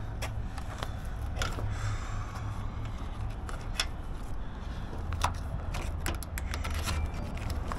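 Low steady hum of an idling vehicle engine, with scattered light clicks, clinks and rubs as a cord is pulled taut and tied at the rear of a truck trailer.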